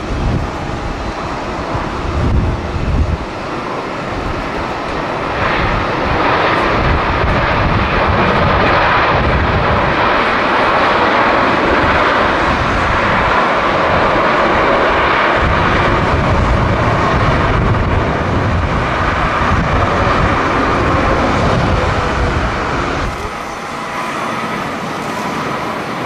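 Jet engines of a Boeing 787 airliner rolling down the runway after landing: a loud steady roar that swells about five seconds in and holds, then drops near the end. Wind gusts on the microphone run underneath.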